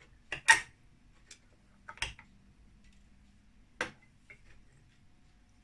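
Metal pie server clicking against a ceramic plate: five or six separate sharp clicks at uneven intervals, the loudest about half a second in.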